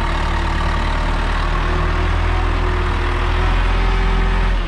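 High-reach forklift's engine running steadily, getting louder for about a second near the end.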